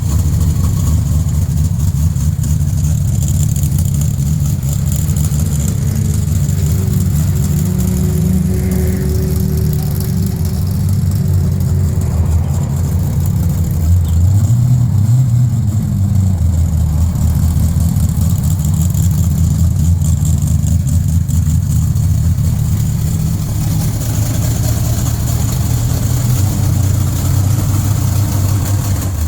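Chevrolet V8 in a Datsun 240Z idling steadily, with its revs rising briefly about halfway through.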